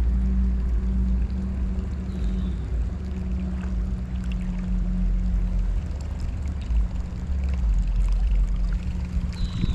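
Wind buffeting the microphone over the running water of a shallow creek, with a steady low hum underneath.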